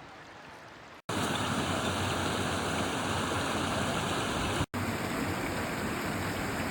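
Small brook babbling, a steady rushing of flowing water that starts abruptly about a second in, breaks off for an instant near the middle and resumes.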